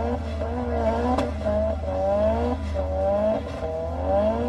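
Recording of a car being drifted, its engine revving up and down over and over with the differential being worked hard; tyre squeal may be mixed in.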